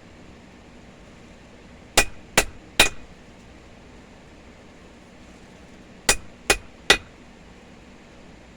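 Hand-hammer blows on hot steel at the anvil, forging the chipping hammer, each with a short metallic ring. The blows come in two runs of three quick strikes about four seconds apart.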